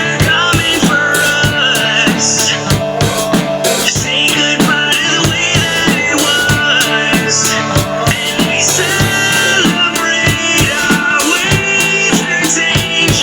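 Rock music playing loud: a full drum kit with bass drum, snare and rimshots keeping a steady beat under held band parts.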